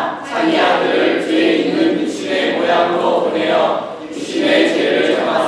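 A group of teenage voices reciting Romans 8 together in unison, in Korean, from memory, in phrases of about two seconds with short breath pauses between them.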